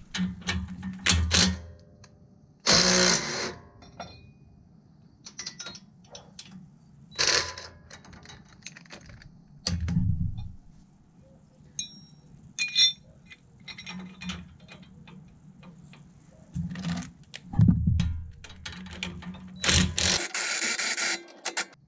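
DeWalt cordless driver with a socket running a bolt in, in short bursts with a longer run near the end, with metal clicks and clanks of the steel bracket, bolt and socket being handled in between.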